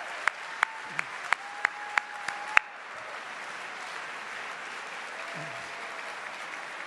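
One person clapping close to a microphone, about three sharp claps a second, over the applause of a seated audience. The close claps stop about two and a half seconds in, and the audience's applause goes on steadily.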